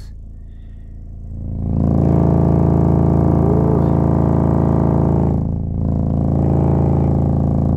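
Prototype 6.5-inch subwoofer running in free air, with no enclosure, on a low test tone of about 27 Hz at roughly 250 watts RMS. Its cone is at very large excursion and gives a loud, steady drone with many overtones. The drone swells up about a second and a half in and drops briefly about five and a half seconds in.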